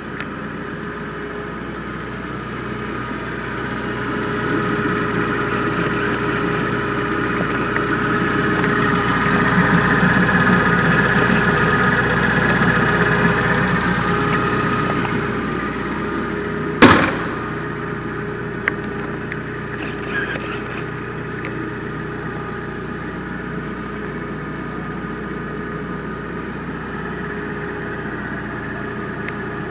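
Jungheinrich TFG 425 forklift's LPG engine idling steadily, growing louder for several seconds in the middle. A single sharp bang comes about two-thirds of the way through.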